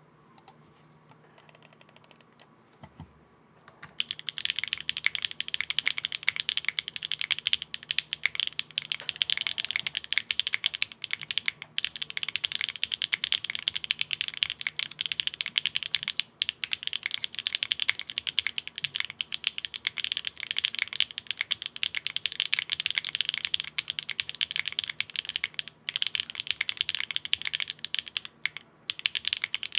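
Fast, continuous typing on a Neo65 mechanical keyboard with HMX Xinhai switches mounted on a polypropylene (PP) plate and no foam inside. A few scattered keystrokes come first, then steady rapid clacking from about four seconds in, broken by a few short pauses.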